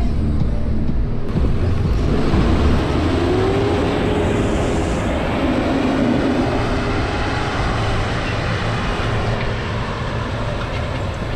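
John Deere tractor's diesel engine working under load as it pulls a subsoiler through stubble. It grows loudest as the tractor passes close by, then slowly eases off.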